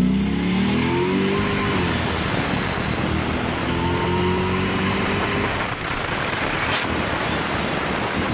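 Mercedes E55 AMG's boosted V8 pulling hard under about 15 psi of boost. The revs climb sharply over the first second and a half and then run on high, with a thin high whine over the engine note.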